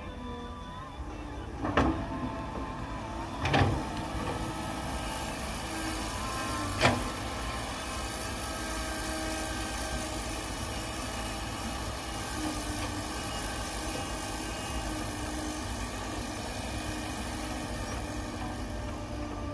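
Heavy machinery engine running steadily during soil loading, with three loud thumps in the first seven seconds.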